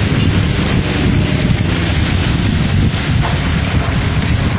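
Wind buffeting the microphone, a loud, steady low rumble.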